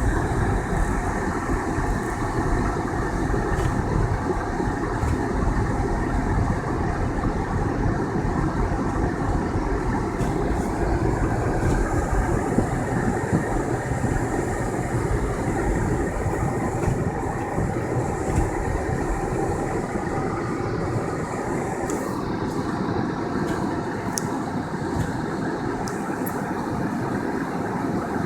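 Car driving on snow-covered roads: a steady rumble of tyres and engine, with a few faint ticks near the end.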